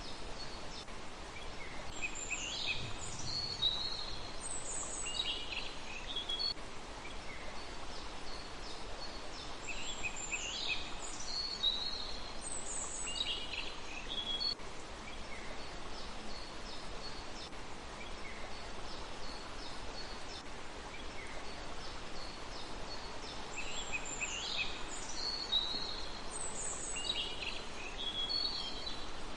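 A small songbird singing three bouts of quick, high chirps and downward-sweeping notes, each a few seconds long, over a steady hiss of outdoor background noise.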